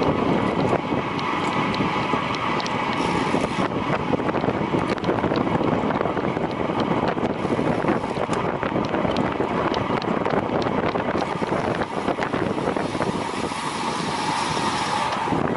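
Steady wind noise buffeting the microphone of a camera carried at speed, with faint scattered ticks.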